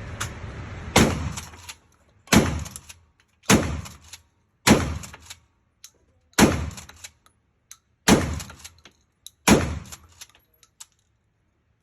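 Seven gunshots fired in a steady string, about one every second and a half, each with a short echoing tail.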